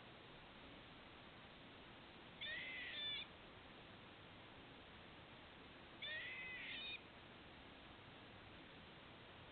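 Squirrel giving two short, high-pitched calls, each under a second and about three and a half seconds apart, a noise the uploader takes for hiccups.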